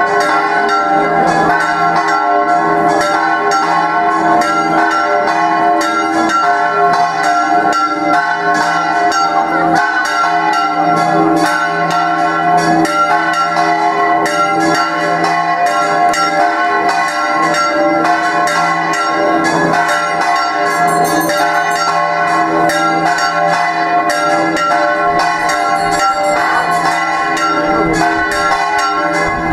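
Church bells ringing a rapid peal, many strokes a second overlapping at a steady loudness, the bell tones ringing on between strokes.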